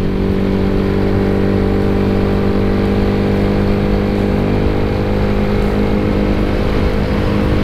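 A Yamaha Mio scooter's single-cylinder four-stroke engine, bored up to 150 cc, running through its exhaust while the scooter cruises at a steady speed, with road and wind noise underneath. The engine note holds nearly constant throughout.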